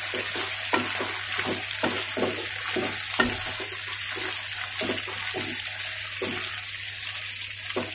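Cauliflower and potato pieces sizzling in hot oil in a nonstick kadhai as a wooden spatula stirs them: a steady frying hiss with repeated scraping knocks of the spatula against the pan, a few a second, coming less often near the end.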